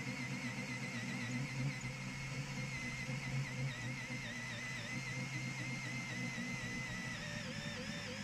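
Cordless drill turning a hole saw up through thick cured epoxy, its motor whine wavering in pitch as the load changes, under soft background music.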